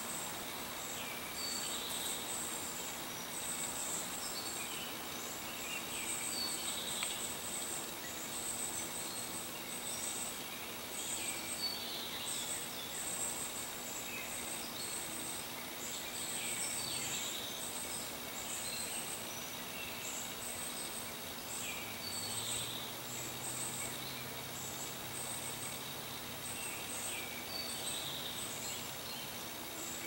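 Outdoor nature ambience: insects trill steadily in a very high pitch, broken into short pulses, while a bird repeats a short call every few seconds.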